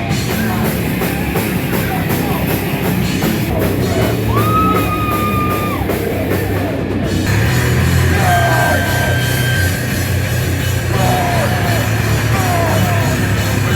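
A hardcore groove metal band playing loud, with distorted guitars and a drum kit. A high note is held for about a second and a half around four seconds in, and several short falling squeals come later.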